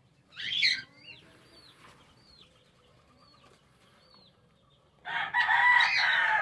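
A rooster crowing: one loud, long crow starting about five seconds in. Before it, a short sharp bird call near the start and faint high chirps from small birds.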